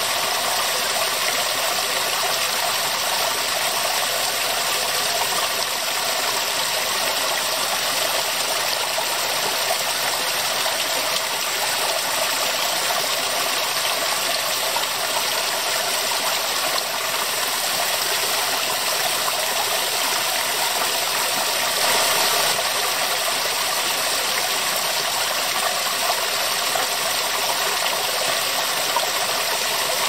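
Small waterfall of many thin streams splashing over mossy rock ledges into a shallow pond: a steady rush of falling and splashing water.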